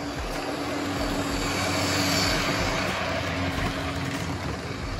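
Model passenger train running past on the layout's track: a steady motor hum with the rumble of wheels on rail, getting louder as the train passes close about two seconds in.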